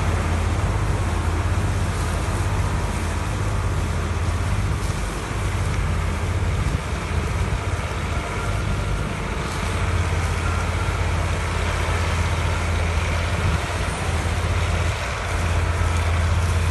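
A 930 self-propelled combine harvester running steadily while harvesting wheat: a continuous engine drone with a strong low hum and broad machinery noise over it.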